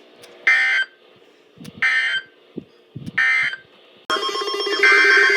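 Three short bursts of Emergency Alert System (SAME) digital data tones, about a second and a half apart: the end-of-message code after a NOAA Weather Radio warning. About four seconds in, a louder steady electronic buzzing tone starts abruptly.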